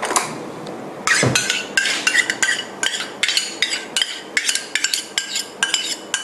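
A metal utensil clinking quickly and repeatedly against a dish, about four light ringing clinks a second, starting about a second in, as oyster sauce is worked over raw pork.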